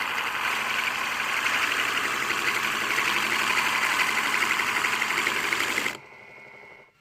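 Small DC motor of a homemade sanding and sharpening machine running at steady speed with a dense, fast rattle. It cuts off suddenly about six seconds in, leaving a faint sound that fades out near the end.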